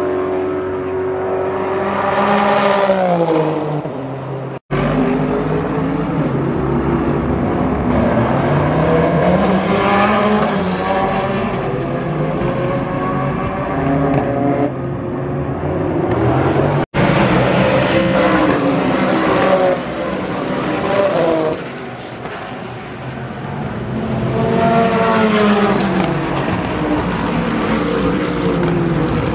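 Several race-car engines at high revs passing one after another, pitch climbing through the gears and dropping as each car goes by. The sound cuts out for an instant twice, about five seconds in and again about seventeen seconds in.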